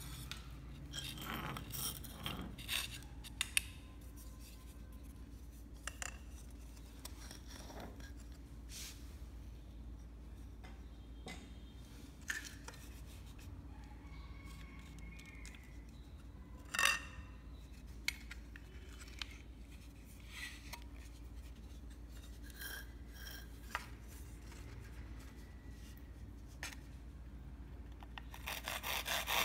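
Small clicks, taps and scrapes of hand work on fishing-rod sections, with one sharper knock about 17 seconds in. Near the end, a fast, regular sawing starts.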